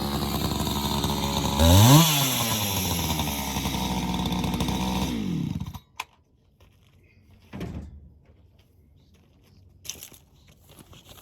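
Two-stroke chainsaw idling, briefly revving up about two seconds in and dropping back to idle, then shutting off just before the middle. Afterwards there are only a few faint knocks.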